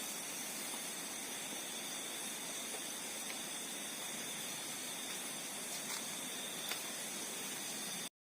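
Steady hiss of a quiet outdoor phone recording, with faint high steady tones over it and a few faint ticks. It cuts off abruptly about eight seconds in.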